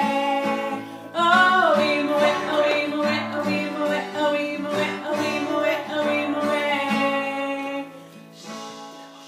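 Acoustic guitar strummed in a steady rhythm with a woman singing along; the music drops in level near the end.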